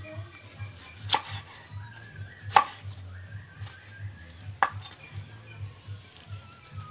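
Large knife chopping jackfruit on a wooden cutting board: three sharp knocks of the blade striking the board, about a second and a half apart.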